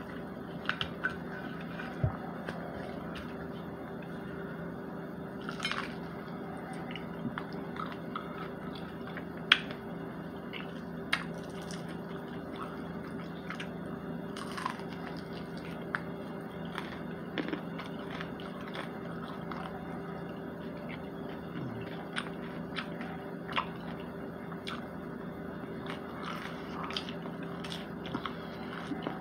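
Close-up eating sounds: chicken torn apart by hand, bitten and chewed, with scattered sharp clicks and crunches over a steady low hum.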